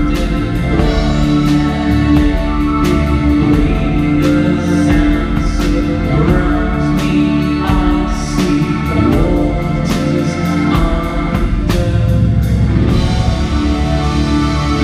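Live rock band playing: electric guitars, bass, keyboards and drum kit, with steady cymbal and drum hits that stop about thirteen seconds in while the guitars and keyboards ring on.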